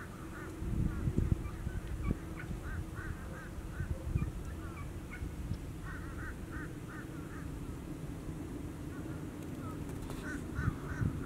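Wild turkey gobblers fighting, with runs of short calls repeated about three times a second. There are a few low thumps, the loudest about a second in and another near the end.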